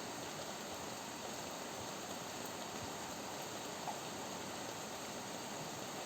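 Rain falling steadily in a backyard: an even, unbroken hiss. A single brief tick stands out about four seconds in.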